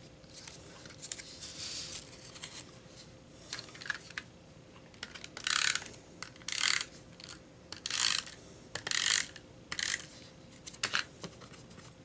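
Paper being handled on a cutting mat: a run of short rustling swishes as sheets and a thin paper strip slide and rub, with a few light taps and clicks between them.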